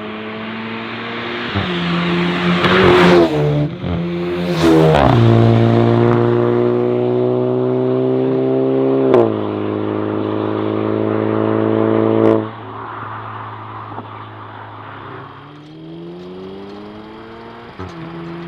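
VW Golf 8 GTI's turbocharged four-cylinder, breathing through a 200-cell sport-cat turbo-back valvetronic exhaust, accelerating hard through the gears. The engine note steps with upshifts, with sharp cracks about three and four and a half seconds in. It drops off suddenly about twelve seconds in as the throttle is lifted, then pulls again, quieter, near the end.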